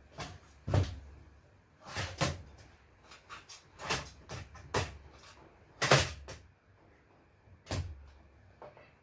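Irregular knocks, clunks and rattles of metal parts and circuit boards being handled and pulled out of an electronics chassis during dismantling. The loudest knock comes about six seconds in.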